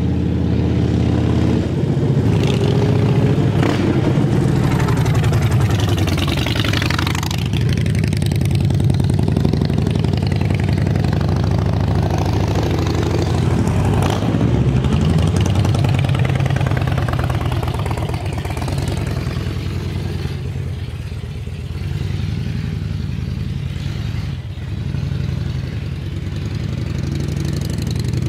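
2007 Harley-Davidson Dyna Street Bob's V-twin through Vance & Hines Short Shots exhaust, ridden around at low speed: the engine note rises and falls in pitch as the bike accelerates and passes close, drops back in level about twenty seconds in as it moves off, and grows again near the end.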